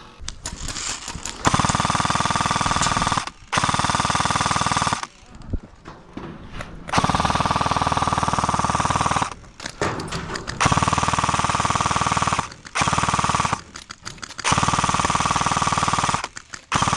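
Airsoft S&T M249 electric light machine gun firing long full-auto bursts, about five of them of roughly two seconds each with short pauses between. Under the rapid clatter runs a steady whine from the motor and gearbox.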